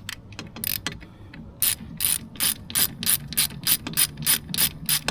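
Hand ratchet wrench clicking as a fastener is turned: a few scattered clicks, then from about a second and a half in a steady run of about three clicks a second.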